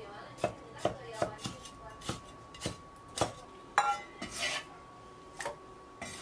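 Chinese cleaver chopping pickled mustard greens on a wooden chopping board, with sharp separate strikes about two a second. A little past halfway there is a clatter and a scrape as the cut pieces are swept off the board into a steel bowl, then a few more chops near the end.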